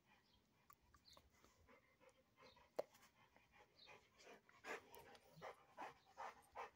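Faint, quick breaths of a large dog panting, about two or three a second and growing louder in the second half. One sharp click comes nearly three seconds in.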